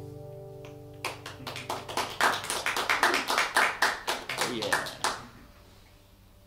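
The acoustic guitars' final chord rings out and fades, then a few people clap for about four seconds before the applause stops.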